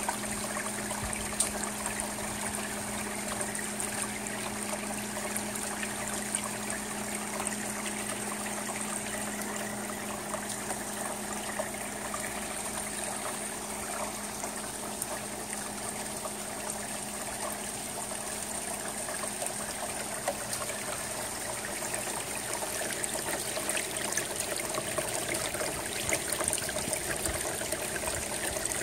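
Steady rain on an asphalt-shingle roof, with water trickling off the shingle edge into a metal gutter and scattered sharp drip ticks. The drips grow a little louder and more frequent near the end.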